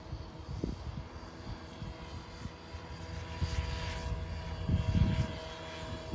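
Align T-Rex 550L electric RC helicopter in flight, a steady multi-tone whine from its motor and rotors, with irregular low rumbling gusts that swell about five seconds in.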